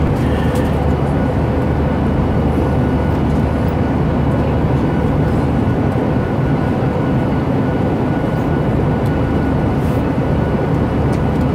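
Steady, loud drone of a jet airliner heard inside the passenger cabin: engine and air noise with a low hum and a faint steady whine.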